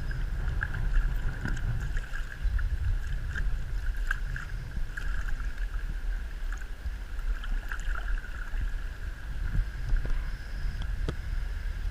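Wind rumbling on the microphone over the steady rush of running river water, with a few faint ticks near the end.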